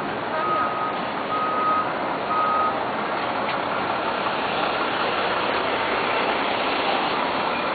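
A truck's reversing alarm sounding three steady single-tone beeps about a second apart, stopping a little under three seconds in. Continuous city street traffic noise runs underneath.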